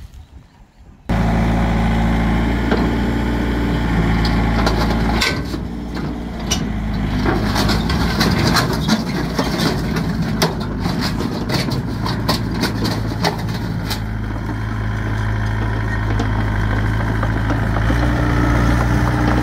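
A farm machine's engine running steadily, cutting in suddenly about a second in. From about five to fourteen seconds in, many sharp cracks and clatters sound over it, and the engine note changes near the end.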